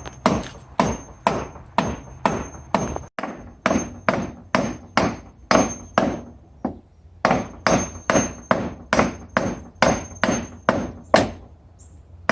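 Hammer blows in a steady rhythm, about two a second, with a short pause about halfway through; the blows stop about a second before the end.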